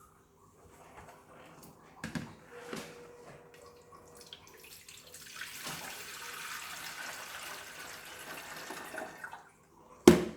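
Water running into the Deerma humidifier's water tank for about four seconds, after a couple of light knocks. A sharp, loud clunk comes near the end.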